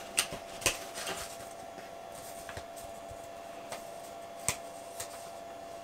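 Paper and cardboard being handled in an opened shipping box: rustling as a letter is lifted out, with several sharp taps and clicks, the loudest in the first second.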